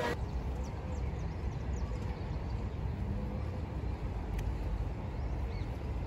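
Outdoor ambience: a steady low rumble, with a few faint bird chirps early on and a single sharp click a little over four seconds in.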